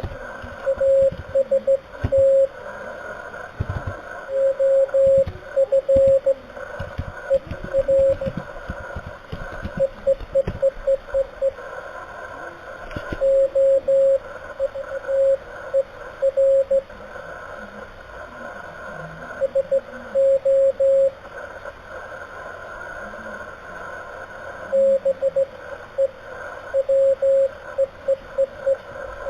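Slow Morse code on an amateur radio: a single steady beep keyed on and off in dots and dashes over a hiss of band noise. There are short breaks of a second or two between groups in the second half.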